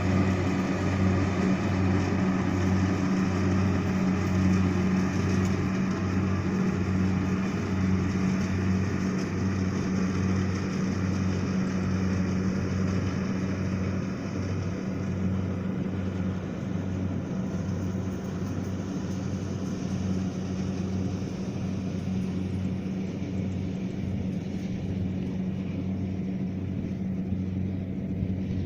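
Rice combine harvester running steadily with a low, pulsing engine drone. The sound grows a little quieter and duller from about halfway through.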